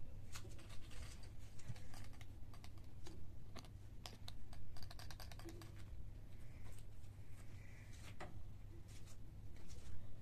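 Irregular light clicks and taps, crowded together about four to five seconds in, over a steady low hum.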